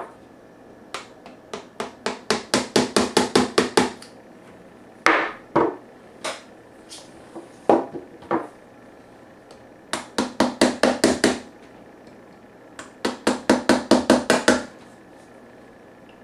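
Claw hammer tapping the end of a red-handled bladed tool, driving the blade through the moulded plastic ribs of a hard case to chip them off. The taps come in three quick runs, several a second, with a few single harder knocks between them.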